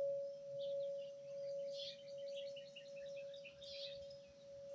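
A large hanging tubular wind chime ringing on after being struck: one long, steady tone, slowly fading with a gentle pulsing waver. Birds chirp faintly in the background.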